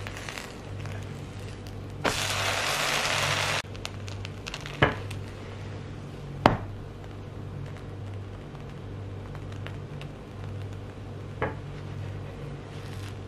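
Milk-soaked French toast frying in butter on a hot grill pan: a loud burst of sizzling about two seconds in, lasting a second and a half and cutting off abruptly. Three sharp knocks follow as the spatula and bread strike the pan, over a steady low hum.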